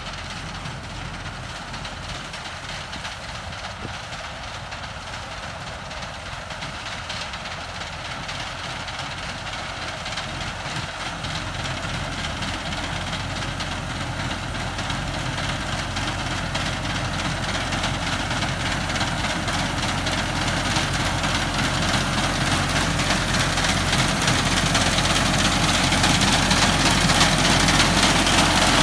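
Massey Ferguson tractor's diesel engine running steadily under load while driving a front-mounted reaper through standing wheat. It grows steadily louder as the tractor comes closer.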